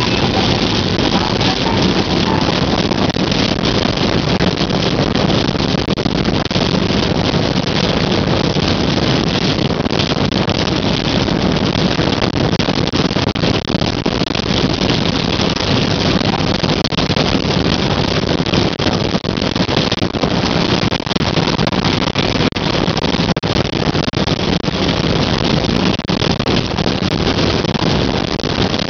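Heavy rain hitting a car's windshield and roof, heard from inside the car as a loud, steady rush of noise.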